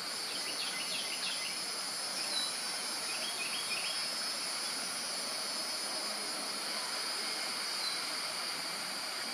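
Steady high drone of insects, with two short runs of quick bird chirps in the first few seconds.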